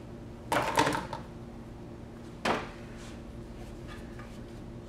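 A brief clatter of knocks about half a second in and a single sharp knock about two and a half seconds in, over a faint steady hum.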